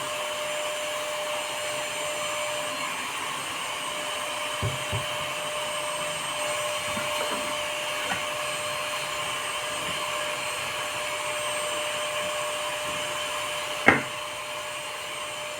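A small electric motor running at a steady speed, a constant whir with a single held tone. It is broken by a couple of faint knocks about a third of the way in and one sharp knock near the end.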